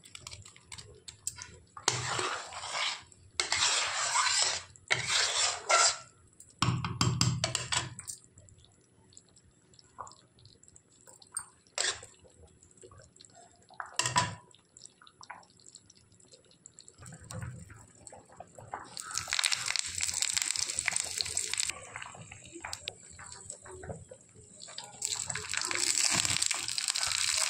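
Wet plops and splashes as fried gram-flour pakoras are dropped into thick simmering kadhi. In the second half, oil sizzles with red chillies and spices frying for the tadka, in two long stretches.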